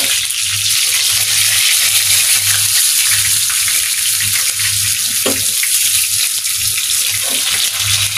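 Halibut pieces shallow-frying in hot oil, a steady crackling sizzle, while a spatula shifts and lifts them in the glass pan.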